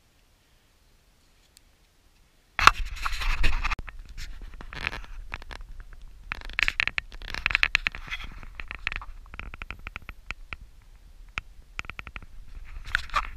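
Irregular scratching, scraping and crunching noises with sharp clicks and a low rumble, starting suddenly about two and a half seconds in after near silence.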